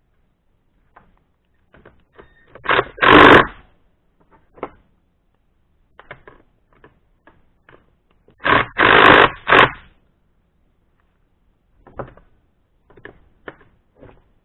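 Cordless impact driver hammering in two loud bursts of about a second each, near three seconds and near nine seconds in, turning a double-nutted bar stud out of a chainsaw crankcase. Light clicks and clinks of tools on the bench come between.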